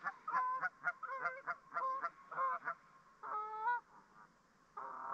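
Geese honking repeatedly: a quick run of short honks, then two longer calls, one just past the middle and one at the end.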